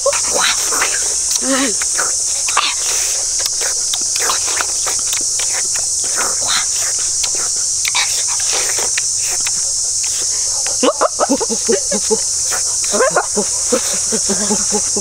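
Continuous high-pitched insect chorus, a steady unbroken drone. Brief voices and scattered light knocks and clicks come through it, with most of the voices about 11 to 13 seconds in.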